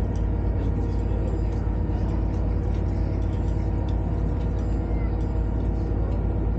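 Engine running steadily: a low, even drone with a constant hum, holding the same speed throughout.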